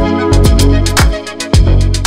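Upbeat background music: a steady kick-drum beat with lighter percussion ticks between the strokes, under held chords.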